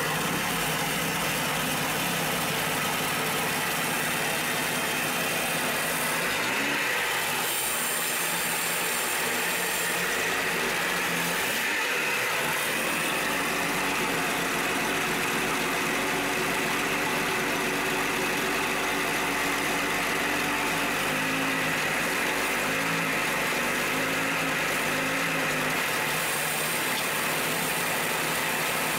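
Boat's V6 inboard engine idling steadily just after a cold start, run out of the water on a garden-hose flush hookup. Its pitch wavers a little for several seconds early on before it settles into an even idle.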